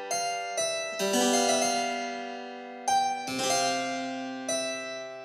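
Background keyboard music: chords struck one after another, each left to ring and fade before the next.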